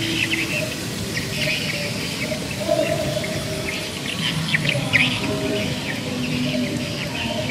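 Mice sizzling and crackling on a wire grill over charcoal as sauce is brushed on, with short sharp pops about three and five seconds in. Birds chirp in the background.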